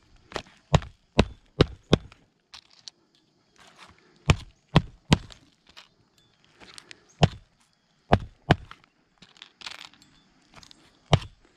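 AJC Mag Hatchet, a magnetic roofing hatchet, driving roofing nails through asphalt shingles. The blows come in groups: a quick run of about five in the first two seconds, three more around four to five seconds in, then single strikes. Softer rustling and clinking of nails being picked up comes between the groups.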